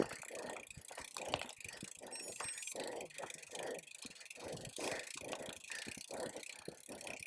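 Mountain bike clattering over a rough trail: a dense run of irregular knocks and rattles from the bike, over tyre noise.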